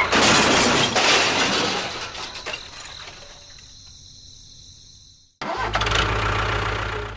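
A loud rushing noise at the start fades away over several seconds, then cuts off. About five and a half seconds in, an engine starts and runs steadily with a low, even hum.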